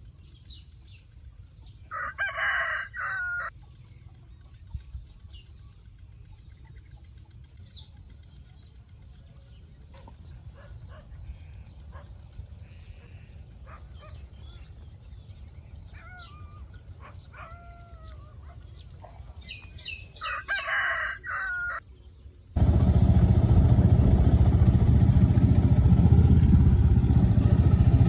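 A rooster crows twice, the two crows far apart, with small birds chirping faintly between them. Near the end a loud, steady low noise cuts in suddenly and drowns everything else out.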